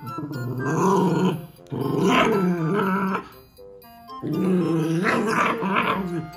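A black Shiba Inu and a Mame-shiba puppy growling at each other, three long wavering growls with short pauses between them.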